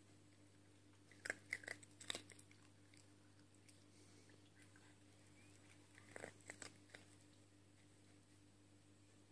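A small dog crunching dry, crunchy treats: a short bout of crisp crunches about a second in, and another around six seconds in.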